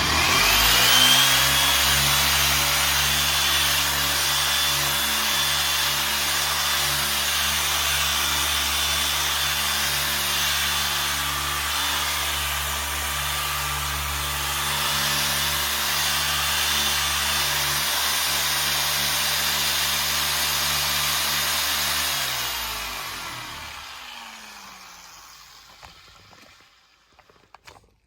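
Dual-action (DA) polisher with a cutting pad spinning up, running steadily while polishing a headlight lens, then switched off about three-quarters of the way through and winding down to a stop.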